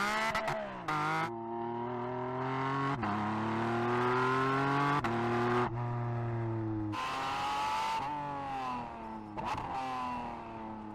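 Porsche 718 Cayman GT4 RS Clubsport's 4.0-litre flat-six racing engine under hard driving, its pitch climbing and falling with sudden breaks at the gear changes, several times over.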